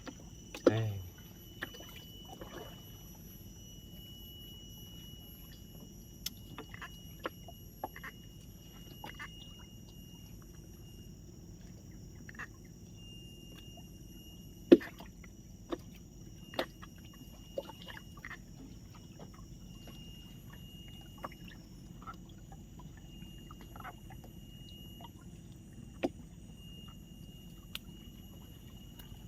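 Scattered light clicks and knocks from handling a freshly caught fish and fishing tackle, one sharper knock about halfway through, over a steady high-pitched background whine.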